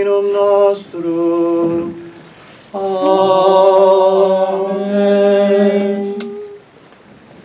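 Unaccompanied singing of Latin liturgical chant in long held notes: two short phrases, then one long note of about four seconds that ends about six and a half seconds in.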